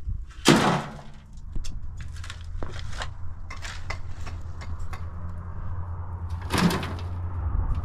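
A metal shovel scraping and striking stony earthquake rubble: one loud scrape about half a second in and another near the end, with scattered small clicks of stones between.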